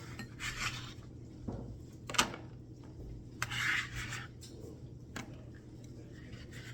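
Chopped celery and carrots being scraped off a cutting board into a pot: a few short scraping rasps with light knocks in between.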